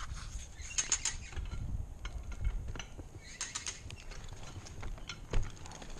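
Tree-climbing hardware clinking: carabiners and metal rigging gear jingling in short clusters of light clicks as a climber handles his rope and lanyard on the trunk, with a duller knock about five seconds in.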